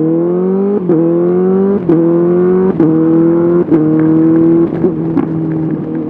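Honda CBR 650R's inline-four engine through an SC-Project SC1R exhaust, pulling hard and changing up through the gears. Each of about five quick shifts, roughly a second apart, cuts in briefly with a sharp crack. After the last shift it runs at a steady pitch.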